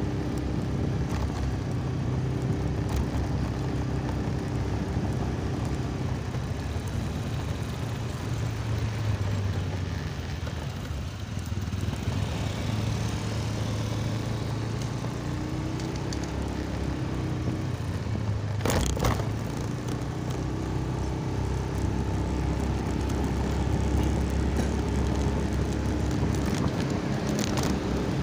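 Motorcycle engine running steadily while riding along a street, with a brief sharp knock about two-thirds of the way through.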